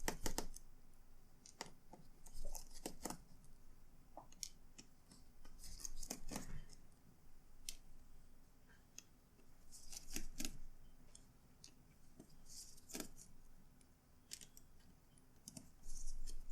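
Irregular small clicks and scrapes of a screwdriver and small screws on a laptop being taken apart, as its hinge screws are removed.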